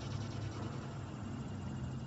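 Motor oil pouring from a one-quart plastic bottle through a funnel into the engine's oil filler neck, glugging as air gets into the bottle, over a steady low hum.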